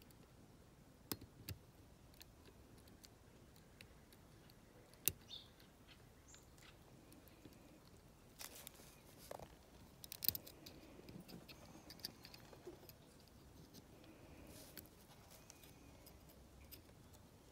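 Faint, scattered small metal clicks and ticks of a shim and magnet tool being worked against a dimple lock, with quiet gaps between them and a few sharper clicks.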